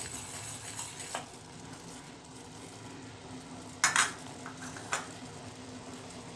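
A pan of spiced black tea (kadha) simmering on the stove with a faint steady hiss. A few sharp clinks of a utensil against the pan come about four seconds in, then one more a second later.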